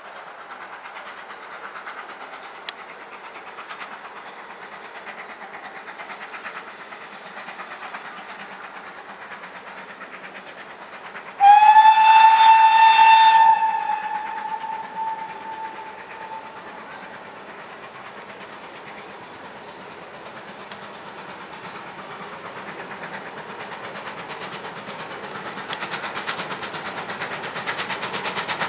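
A train of coaches rolling along the rails, with a loud GWR-type steam locomotive whistle partway through: one steady note held for about two seconds, then dying away. Near the end a steam locomotive working hard comes closer, its exhaust beats growing louder.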